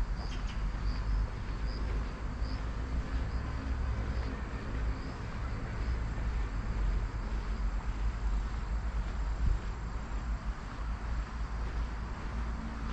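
Outdoor ambience on a walking path: a steady low rumble under an even hiss, with faint short high chirps in the first few seconds.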